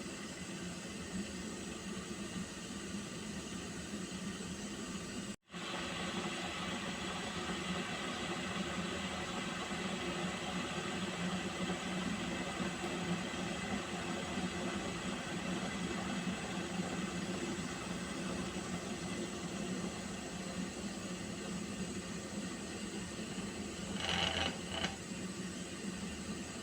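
Water heating in a pot: a steady hiss with a low hum. The audio cuts out for an instant about five seconds in, and two short sounds come close together near the end.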